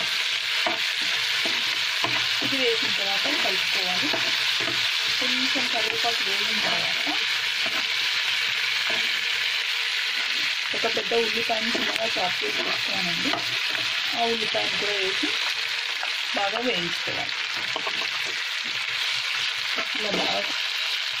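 Ginger-garlic paste and green chillies frying in hot oil in a non-stick pan: a steady sizzle, with a spatula stirring and scraping the pan.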